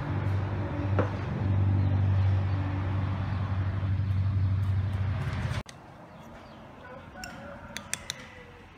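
A steady low hum that cuts off abruptly a little past halfway. Then it is quieter, with a few light metallic clinks of a spoon against a stone mortar near the end.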